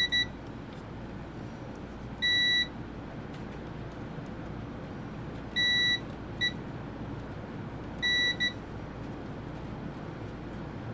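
Digital multimeter beeping as its probes touch diode leads during diode and continuity checks on the breadboard's power-supply board. Short, high beeps come at irregular intervals, some in quick pairs, over a steady low background hum.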